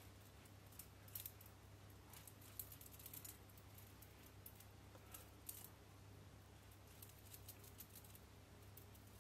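Near silence: room tone with a low steady hum and a few faint, scattered clicks and taps.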